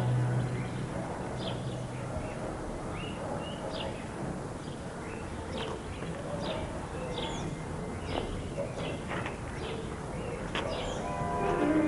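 Small birds chirping, many short high chirps scattered throughout. Low music fades out in the first second or so, and piano music comes in near the end.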